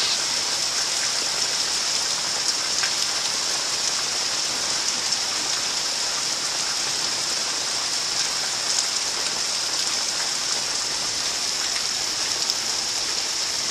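Heavy thunderstorm rain falling steadily: an even hiss with an occasional sharper tick of a drop.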